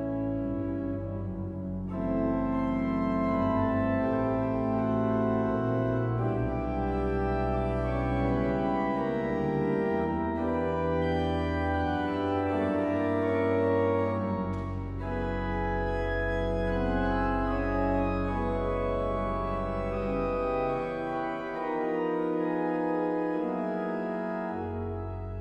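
Pipe organ playing sustained chords, with deep bass notes played on the pedals. The sound grows fuller and louder about two seconds in.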